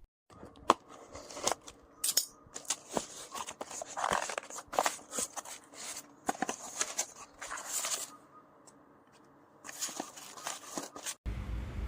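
Irregular clicks, snaps and rustling, like something being handled, with a pause near the end. It then cuts abruptly to a steady rushing noise.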